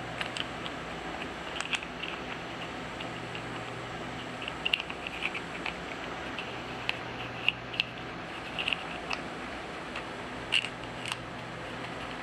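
Irregular small clicks, taps and scrapes of a SureFire R1 Lawman flashlight being handled as its tail cap is fitted back onto the body, with a few sharper clicks near the end. A steady room hum runs underneath.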